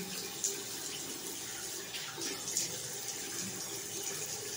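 Hot water running steadily from a bathroom tap into the sink, with a few brief splashes as water is scooped onto a face.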